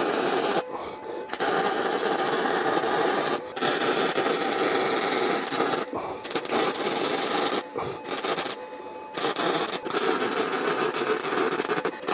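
Welding arc crackling and hissing in a series of runs one to three seconds long, with short breaks between them, as metal parts are tack-welded together.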